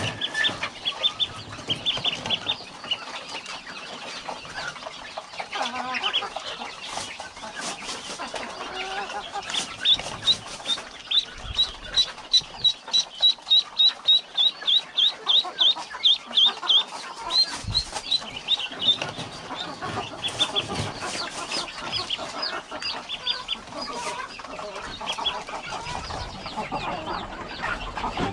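A flock of native village chickens calling and clucking. From about ten to seventeen seconds in, a rapid run of high peeps comes at roughly four a second.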